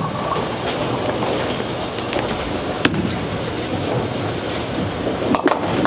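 Bowling ball rolling down a wooden lane: a steady rumble, with a sharp knock about three seconds in and a clatter of pins being hit near the end.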